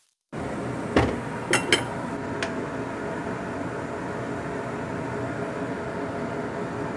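A spatula knocking and clinking against a ceramic plate and the wok as stir-fried greens are served: one knock about a second in, then two sharp clinks. A steady mechanical hum runs underneath.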